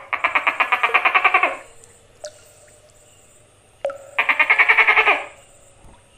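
Tokay gecko calling: two rapid rattling bursts of roughly a dozen pulses a second, the first lasting about a second and a half at the start, the second about a second long, about four seconds in.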